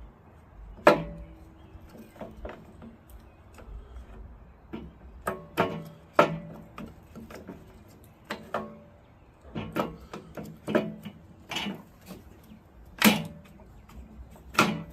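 Metal parts of a 1965 Chrysler 727 automatic transmission clinking and knocking against each other, a dozen or so irregular sharp knocks, some ringing briefly, as it is reassembled by hand.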